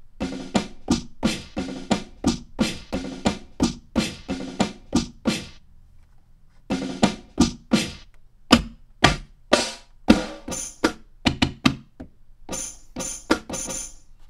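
Boom bap snare drum samples auditioned one at a time from MPC Renaissance pads, about two to three separate hits a second, with a pause of about a second midway. The last few hits are brighter, with a high ring on top.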